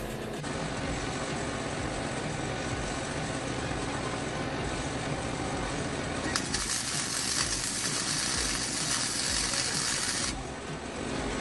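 Electric arc welder tacking a steel pipe to the kart frame: a crackling hiss that starts about six seconds in and cuts off about four seconds later, over a steady background noise.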